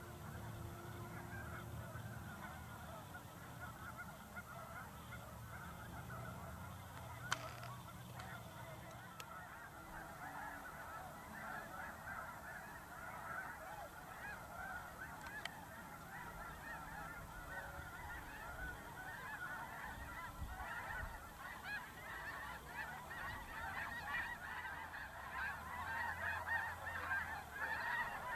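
A large flock of geese calling continuously on the water, a dense chorus of overlapping honks that grows louder near the end. A single sharp click about seven seconds in.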